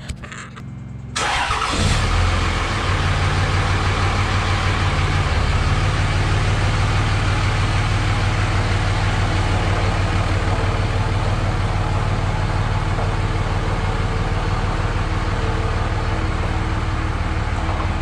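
Cummins 5.9-litre turbo-diesel inline-six of a 2005 Dodge Ram 2500 running at a steady idle as the pickup backs slowly out. The engine sound comes in abruptly about a second in.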